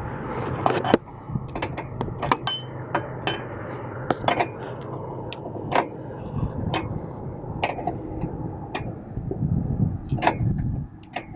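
A 19mm open-end wrench clinking on the jam nuts of a sway bar link as they are tightened: a run of irregular, sharp metallic clicks over a low steady hum.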